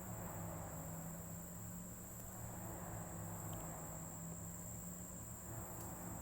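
Crickets chirring in an unbroken high-pitched drone over a low steady hum, with a couple of faint ticks.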